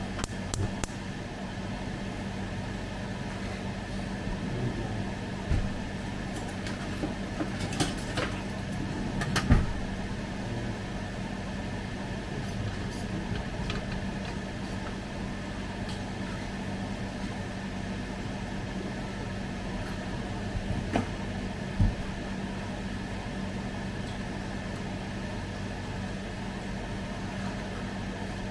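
Air fryer running with a steady fan hum, with a few short knocks and clatters from kitchen items being handled, the loudest about nine seconds in.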